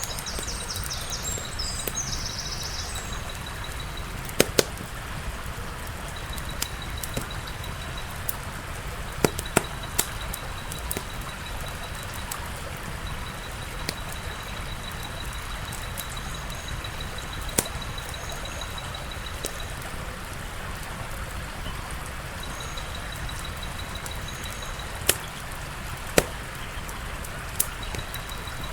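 Wood fire crackling: a steady hiss with sharp, irregular pops now and then, some in quick pairs.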